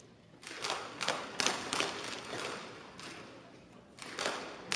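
Daisy BB guns firing along the firing line: about ten sharp pops at irregular intervals, several shooters at once, with a lull of a second or so before a few more near the end. Each shot rings briefly in a large hall.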